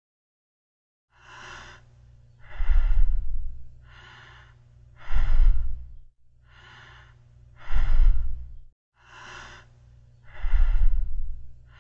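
Slow, heavy breathing through a breathing apparatus, as in a diving or pressure-suit helmet. Four cycles of a hissing in-breath followed by a louder out-breath with a low rumble, over a low steady hum.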